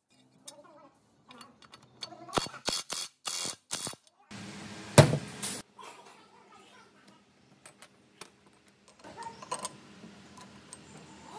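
Clicks and knocks of small metal parts being handled and set down on a metal workbench, with one sharp knock about five seconds in.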